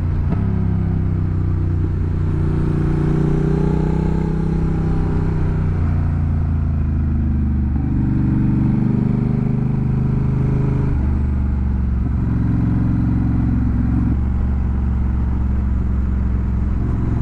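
Honda Rebel 1100's parallel-twin engine running under way on a twisty road, its note changing pitch in steps several times as the rider works the throttle through the corners.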